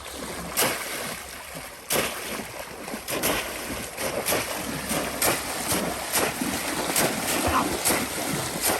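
Shallow river water splashing and sloshing in a string of irregular strokes, roughly one every half second to second, over a steady rushing noise.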